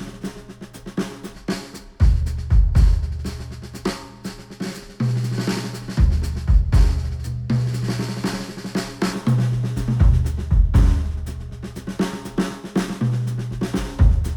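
Instrumental music with a drum kit and deep bass notes that shift pitch every second or two, played back through Sennheiser headphones and picked up by microphones.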